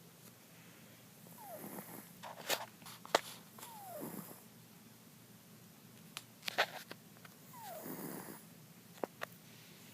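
Domestic cat snoring in its sleep: three slow snoring breaths a few seconds apart, each opening with a short falling whistle. A few sharp clicks fall between them.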